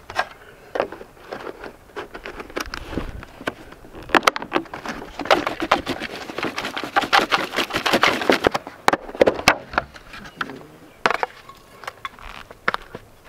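Fish fillets and crushed cheese-cracker crumbs shaken in a lidded foil tray to bread them: a dense rattle for about five seconds in the middle, with scattered clicks and knocks of the plastic lid and tray before and after.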